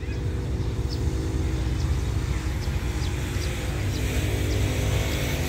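Steady low rumble and hum of a diesel-electric locomotive's engine running in the distance, with faint high chirps throughout.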